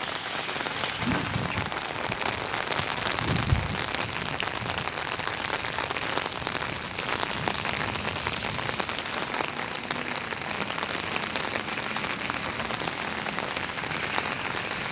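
Heavy rain falling steadily, a dense patter of drops hitting surfaces, with one brief low thump about three and a half seconds in.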